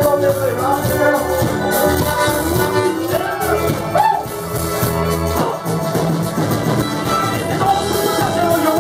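Live band music played loud over a steady beat, with a brass section and a voice carrying gliding melody lines.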